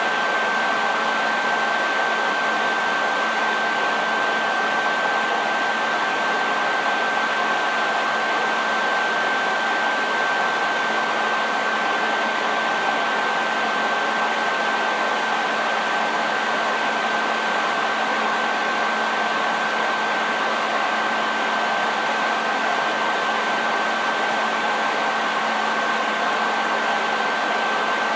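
Hair dryer running steadily: an even rush of blown air with a constant high whine from its motor and fan.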